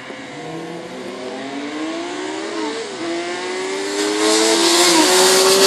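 Two sprint-race motorcycles accelerating flat out toward and past the listener. Their engine notes climb in pitch through the gears and drop back at each upshift, getting louder as the bikes close in, with a marked rise about four seconds in.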